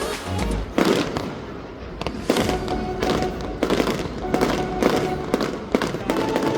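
Aerial fireworks going off in a quick, uneven series of loud bangs and crackles, with music playing underneath.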